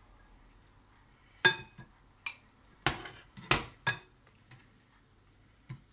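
Metal wire whisk clinking and knocking against a glass mixing bowl while beaten egg whites are folded into batter: about five separate knocks over a couple of seconds, the first sharp and ringing.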